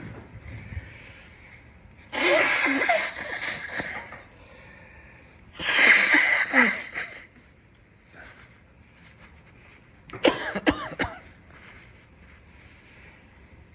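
A man with a head cold coughing in three bouts, about two, six and ten seconds in. The first two bouts are long and drawn out; the last is shorter and sharper.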